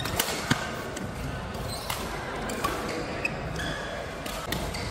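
Badminton rally in a large hall: sharp racket strikes on the shuttlecock, two in quick succession at the start and more later, over steady hall background noise.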